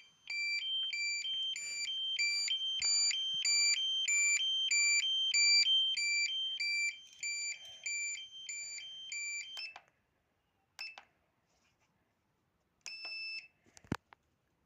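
Fire-alarm sounder on a Signal-20M security and fire control panel sounding a two-tone alarm, a low and a high note alternating quickly and evenly, which stops about ten seconds in. Then comes one short beep, another short beep about two seconds later, and a sharp click just before the end.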